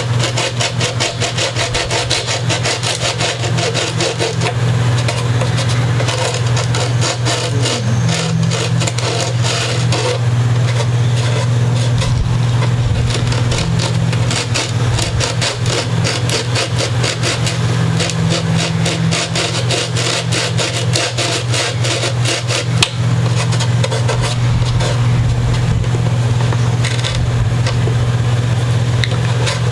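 A long hand file rasping on the wood of a guitar body in rapid back-and-forth strokes, over a steady low hum.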